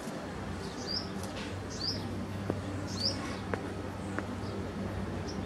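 A bird chirping, with short high notes repeated about once a second.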